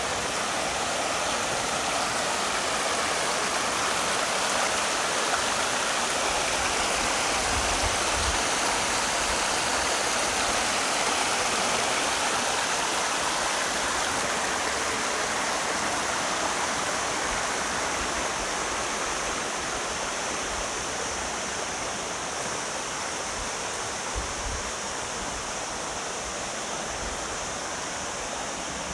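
Continuous rush of water falling over natural waterfalls and cascades, a steady even noise that grows a little quieter in the second half.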